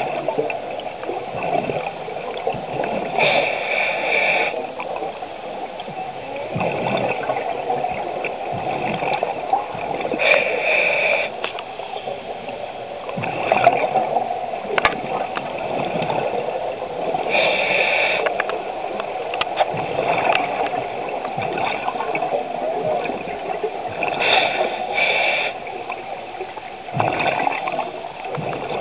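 Scuba regulator breathing underwater: four hissing inhales, several seconds apart, each followed by a long, bubbling, gurgling exhale.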